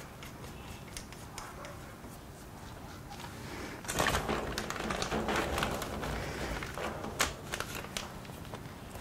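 Clear plastic zip-top bag crinkling as it is handled, starting about four seconds in and lasting a couple of seconds, with light clicks and handling noises before and after.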